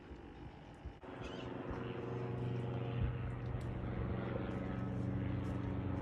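A steady, even engine drone that starts abruptly about a second in.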